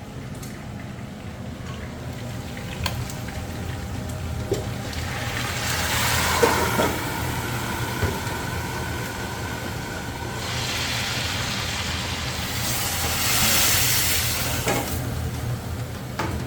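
Pork frying in a large pan over a high gas flame, sizzling, the sizzle swelling louder twice, in the middle and near the end, over a steady low hum, with a few light knocks.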